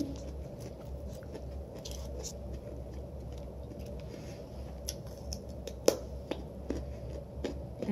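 Close-up eating sounds: quiet chewing of steak and salad with scattered small clicks, and one sharper click about six seconds in.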